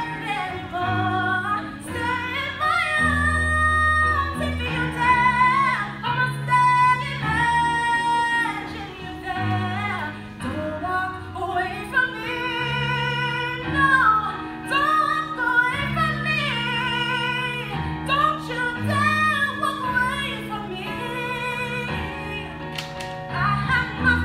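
A woman singing a power ballad live into a handheld microphone, with long held notes and vibrato, over instrumental accompaniment with sustained low chords.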